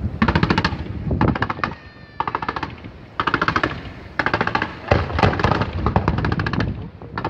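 A fireworks display firing rapid salvos: runs of sharp cracks in quick succession, like machine-gun fire, each run lasting half a second to a second, about seven runs with short pauses between them.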